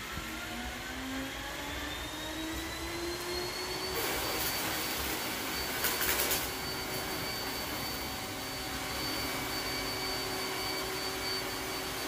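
iRobot Roomba s9+ robot vacuum running over a dirty concrete floor, its motor whine rising in pitch over the first few seconds and then holding steady. A short burst of clicks comes about six seconds in.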